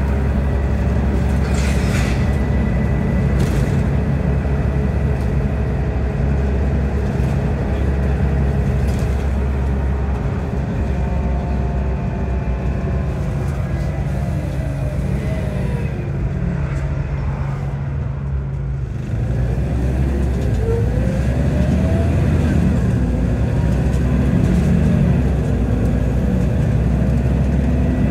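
Scania DC9 9.0-litre diesel and ZF Ecomat five-speed automatic gearbox of a Scania N94UB Omnicity bus, heard from inside the saloon, running steadily under way. About halfway through the pitch falls and the sound eases off as the bus slows, then rises again as it picks up speed.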